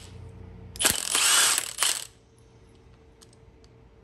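Cordless Milwaukee M18 impact wrench spinning up and hammering for about a second, with a brief break near the end, breaking loose the oil pressure sending unit on an LS V8 block through an oil pressure switch socket.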